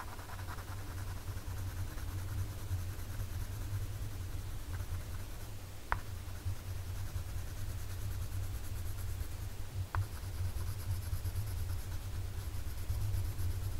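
Colored pencil scratching on sketchbook paper in continuous back-and-forth shading strokes, with a couple of sharp ticks partway through.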